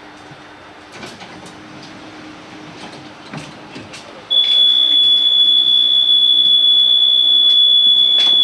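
Tatra T6A5 tram's door-closing warning: a loud, steady, high-pitched beep starts about four seconds in and holds without a break. Before it there is only the car's low steady hum and a few sharp clicks.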